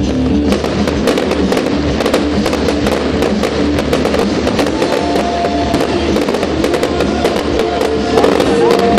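Fireworks crackling and popping in rapid, dense sharp cracks over loud music, with new sustained musical notes coming in about five seconds in.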